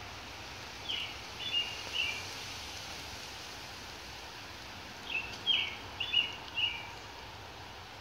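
Steady hiss of falling rain, with a songbird singing two short phrases over it: three quick notes about a second in, then five more about five seconds in.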